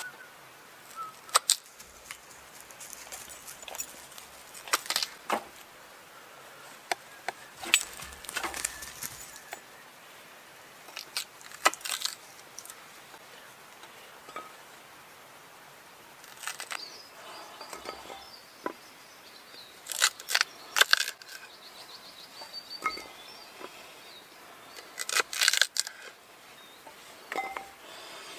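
A knife cutting carrots and potatoes on a small wooden chopping board: sharp taps and knocks at irregular intervals, some in quick runs, with pieces dropped into a cast-iron dutch oven.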